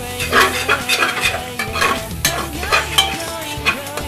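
Metal spoon stirring vegetables and masala frying in an aluminium pot: quick repeated scrapes against the pot over a steady sizzle.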